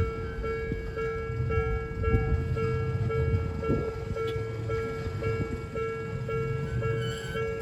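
Japanese level-crossing alarm ringing its repeating electronic bell while a train of Odakyu 1000 and 3000 series electric cars rumbles through the crossing. The train's rumble swells in about a second in and eases near the end.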